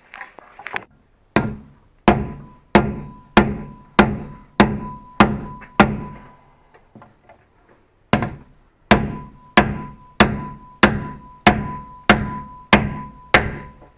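Hammer blows on the metal of a VAZ-2110 rear-beam silent block, knocking the worn bushing out of its eye in the beam. Each blow rings sharply; there are two runs of about eight and nine strikes, about one every 0.6 seconds, with a pause of about two seconds between them.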